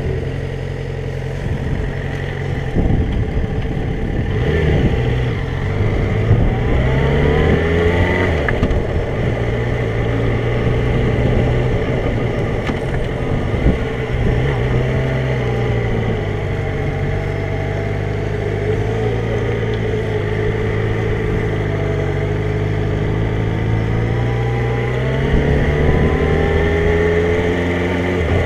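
Motorcycle engine under way, climbing in pitch as it accelerates between about four and eight seconds in, then dropping back and running steadily, and climbing again near the end.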